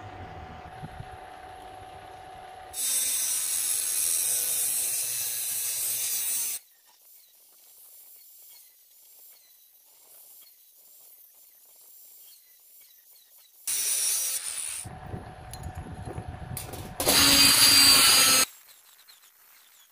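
An angle grinder's abrasive wheel cutting into a metal disc, a loud harsh grinding with sparks for about a second and a half near the end. Earlier come a few shorter stretches of harsh hiss and a low rumble, with quiet between.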